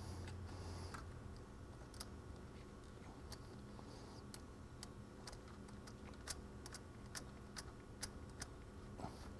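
Faint, irregular small clicks of metal parts being handled: a wire's ring terminal and nut being fitted onto the negative post of a vehicle battery, with a few sharper clicks in the second half.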